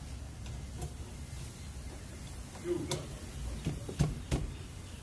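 A few sharp metal clicks and knocks, the loudest about four seconds in, as a wrench is fitted onto a 13 mm bolt of a rear disc-brake caliper.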